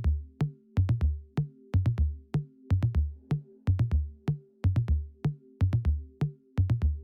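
Electronic background music with a steady drum-machine beat: kick drums about twice a second under sharp clicks and a held bass tone.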